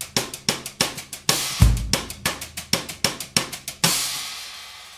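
Background music: a drum-kit beat, a fast run of sharp hits with a kick-drum thump about a second and a half in. It ends in a cymbal crash near the end that fades away.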